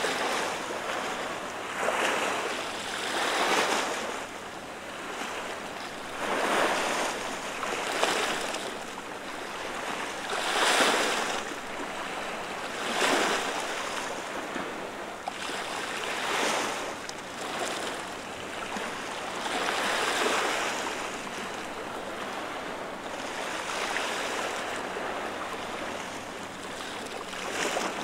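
Small waves washing and splashing against a flat rock breakwater, one surge of surf every two to four seconds with softer lapping between.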